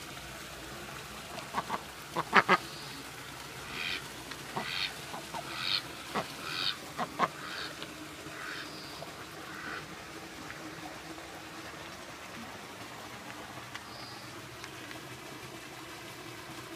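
Domestic duck giving a run of about eight short quacks, after a few sharp clicks near the start; the calls stop a little past halfway.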